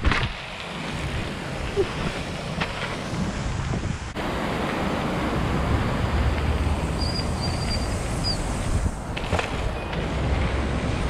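Wind buffeting a GoPro's microphone while an Inspired Fourplay street trial bike rolls over concrete. A few sharp knocks from the bike come at the start, about a quarter of the way in, and near the end.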